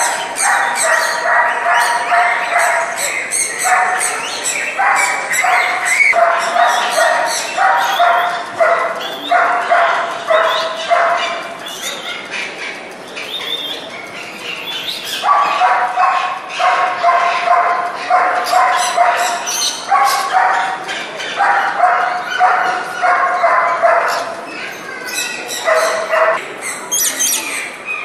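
An animal giving rapid, repeated short yapping calls, several a second, in runs broken by brief pauses.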